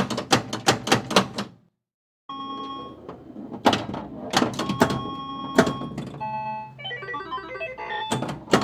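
A quick run of sharp mechanical clicks, then after a short gap a longer sequence of clicks and clunks over steady electronic tones that shift in pitch: sound effects from a technology effects library.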